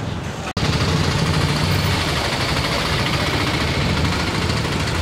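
Engines of a lorry and an auto-rickshaw running steadily close by as they drive through floodwater on a street. The sound starts abruptly about half a second in and stops abruptly near the end.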